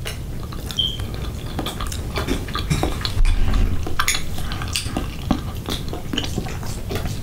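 Metal spoon clicking and scraping against a glass bowl, with a short ringing clink about a second in, and close-up chewing. A dull low bump, the loudest moment, comes about three seconds in.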